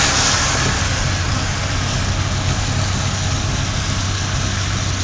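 Engine and road noise of a moving vehicle: a steady low engine hum under an even wash of tyre and wind noise.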